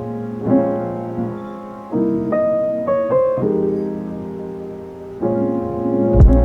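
Background piano music: sustained chords that change every second or so, with a low drum beat coming in near the end.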